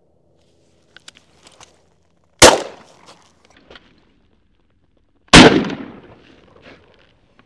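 Two shotgun shots about three seconds apart, each loud with a short echoing tail. A few faint clicks come about a second before the first shot.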